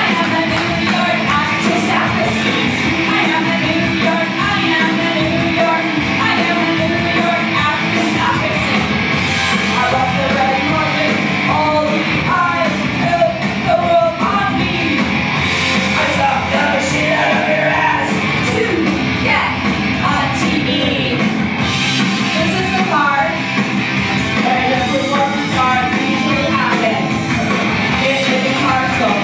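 A woman singing into a handheld microphone over loud rock music.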